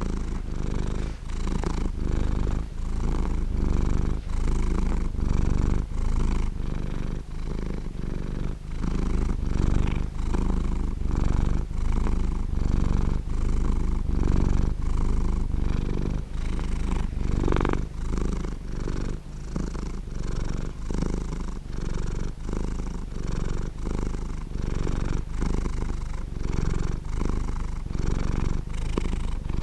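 Domestic cat purring steadily close to the microphone: a low, continuous rumble that pulses evenly with its breathing, about two pulses a second. A contented cat.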